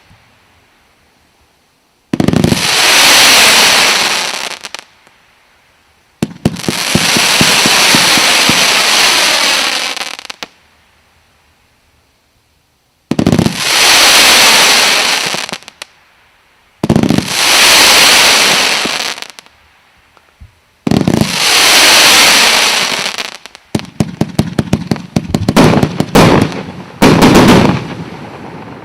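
An 'Armageddon' consumer fireworks battery (salute cake) firing: five long noisy bursts of two to four seconds each, each starting sharply and separated by short pauses. From about 24 seconds in it moves into a rapid volley of bangs, several a second.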